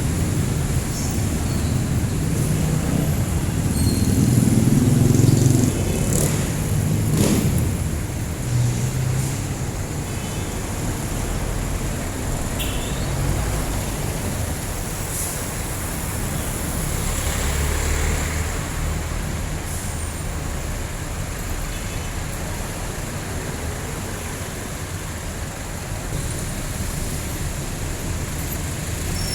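Street traffic dominated by jeepney engines running and passing, a steady low rumble that swells as a vehicle goes by close about five seconds in.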